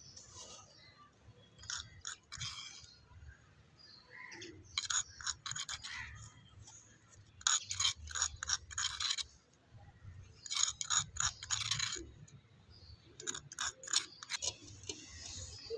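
A small utensil scraping inside a miniature clay pot in several bursts of rapid scratching as its contents are scooped out.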